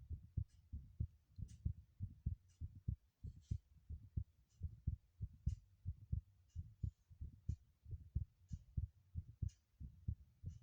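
Heartbeat: a steady, even rhythm of low thumps, several a second, with a faint high tick about once a second.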